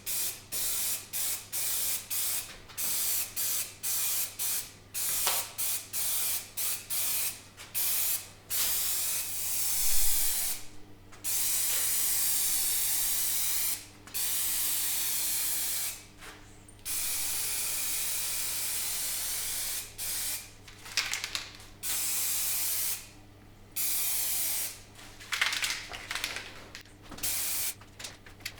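Paint being sprayed: a hiss of spray switched on and off in many short bursts, with several longer passes of two to three seconds each in the middle.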